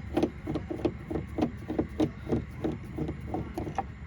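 Screwdriver backing a screw out of the door-handle mounting, a steady run of short clicks about four a second.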